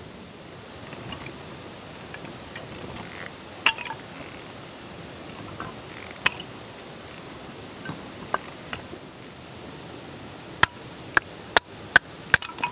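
Cookware and utensils being handled during camp cooking, clinking and knocking: a few scattered clicks, then a quick run of about six sharp knocks near the end.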